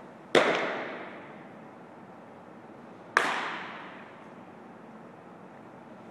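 Two sharp bangs about three seconds apart, each ringing out for about a second through the gymnasium: a thrown baseball striking a hard surface.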